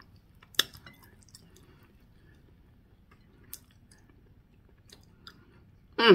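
Close-up chewing of soft cooked green beans and peas: faint wet mouth clicks and smacks, with one sharper click about half a second in.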